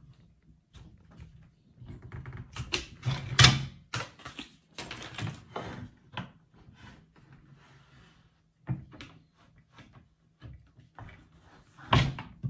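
Irregular clicks, knocks and clatter of a Vonhaus 20V Max cordless sliding mitre saw being set up and adjusted by hand, its plastic and metal parts being moved and fitted. The sharpest knock comes about three and a half seconds in, with another near the end.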